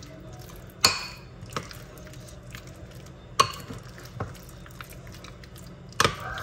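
Spoon stirring chicken pieces through a thick egg-and-flour batter in a glass bowl. It clinks sharply against the glass three times: about a second in, halfway through and near the end. Softer taps come in between.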